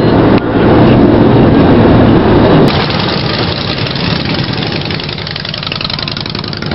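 Motorcycle engines running as a procession of heavy cruiser motorcycles rides slowly past. A loud, steady engine drone changes abruptly about two and a half seconds in to a quieter mix of several bikes' engines.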